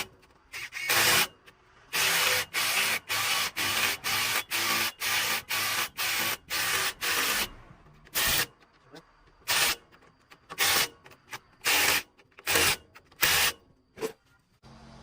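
Repeated hand scraping or rubbing strokes, about two a second for several seconds and then more irregular, typical of hand-working the surface of a truck wheel or tyre.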